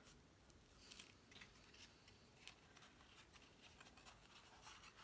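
Near silence, with a few faint rustles and light taps of cardstock being folded over and pressed onto a glued tab.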